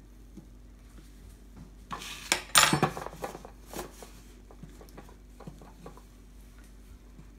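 Clatter of a knife and a plastic rolling pin on a stone countertop about two seconds in, as the knife is put down and the rolling pin taken up, then soft scattered knocks as the rolling pin rolls over sheet pasta dough.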